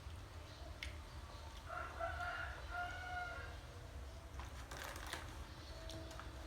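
A rooster crowing once, one long call that falls off at the end, followed a second later by a few clattering knocks.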